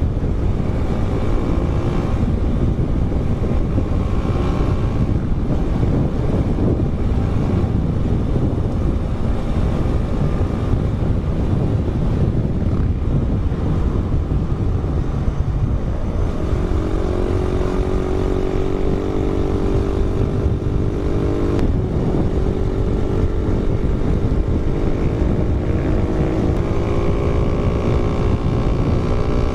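A motorcycle riding along, with heavy wind noise on the microphone over the engine's drone. The engine tone is clearest in the second half, holding a steady pitch and stepping up twice.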